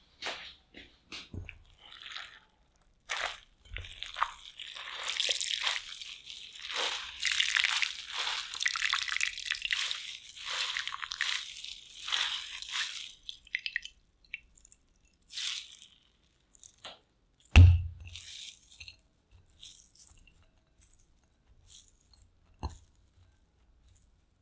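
Hands squeezing wet shredded raw potato, with a crunching, squishing crackle and liquid dripping into a glass bowl. A single loud knock comes about two-thirds of the way in, followed by light scattered handling sounds of the shreds on a ceramic plate.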